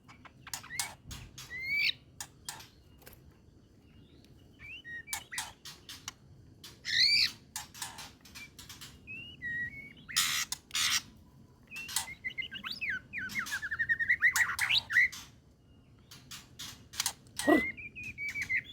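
White-rumped shama (murai batu) singing a varied, aggressive song: sharp clipped notes and whistled rising and falling phrases, with a fast chattering trill of repeated notes past the middle. This 'trotolan' delivery is the sign of a shama in full agitation ('full emosi').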